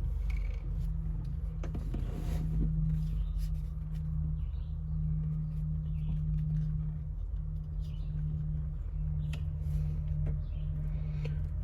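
A steady low hum, with scattered faint clicks and taps.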